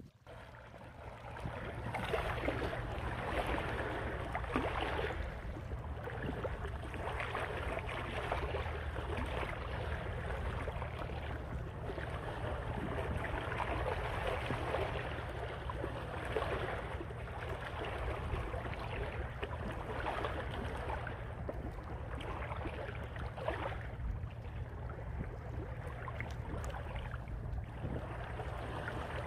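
Outdoor sea-shore ambience: wind and water noise that swells and eases every few seconds over a steady low rumble, coming up about a second in.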